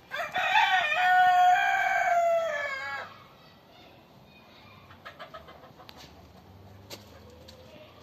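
A rooster crowing once, a single long crow of about three seconds whose pitch holds level and drops at the end, followed by faint scattered rustles.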